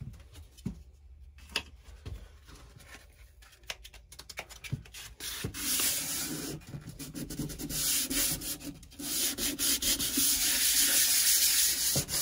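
A countertop being hand-sanded with a sheet of 220-grit sandpaper to take the gloss off before painting. It is a dry rubbing that is light and scattered at first, then turns steady and louder from about halfway, with a brief break near the end.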